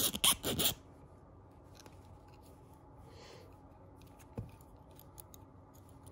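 Copper wire clicking in the hands as the pin of a penannular brooch is fitted onto its ring: a quick cluster of sharp clicks at the start, then light scattered clicks and a single knock about four and a half seconds in.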